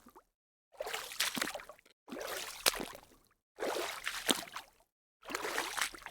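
Water splashing in four separate splashes, each about a second long and dying away, coming roughly every one and a half seconds, with dead silence between them.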